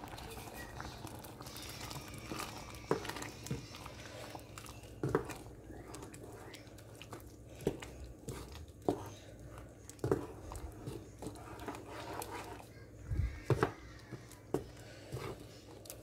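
Wooden spoon stirring thick tomato dal in an aluminium pressure-cooker pot, knocking against the pot's metal side and bottom at irregular intervals of about a second.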